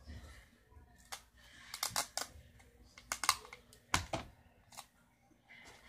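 A string of about nine irregular clicks and taps from hands handling objects right next to the microphone, loudest around the middle.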